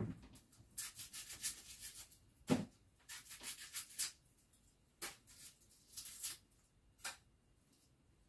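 Dry, papery rubbing and rustling in about six short bouts, typical of an onion's dry outer skin being peeled off by hand.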